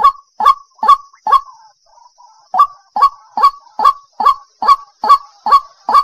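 White-breasted waterhen calling: one short note repeated over and over, about two to three a second, each note rising quickly in pitch. There is a pause of about a second partway through.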